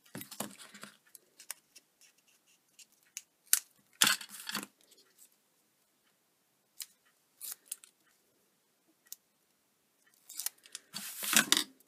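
Scissors snipping double-sided tape, with rustling and light clicks from card and tape being handled; the loudest rustles come about four seconds in and again near the end.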